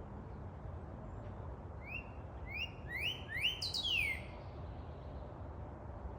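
A bird sings a short phrase of about five quick rising chirps that come closer together, ending in a falling note, over a steady low background rumble.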